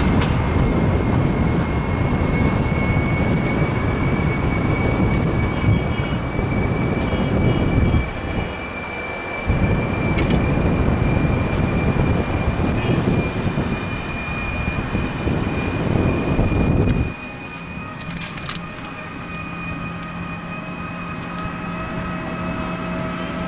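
Ride in an open motor rickshaw: a rough rumble of wind buffeting and road noise, with a thin steady high whine throughout. The rumble stops for a second or so about eight seconds in. It drops away sharply about two-thirds of the way through, leaving a quieter steady hum.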